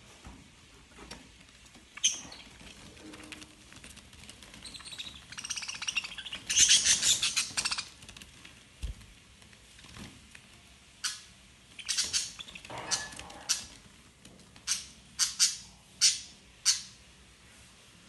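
Budgerigars chirping and squawking as they squabble over broccoli. There is a burst of busy, high chatter about six to eight seconds in, then a string of short, sharp calls.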